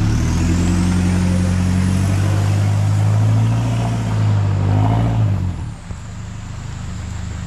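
A four-wheel drive's engine running loud and steady under load, then easing off about five and a half seconds in.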